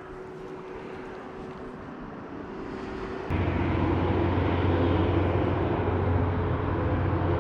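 Steady rumble of road traffic. It grows slowly, then about three seconds in a sharp click is followed by an abrupt jump to a louder, deeper rumble that holds steady.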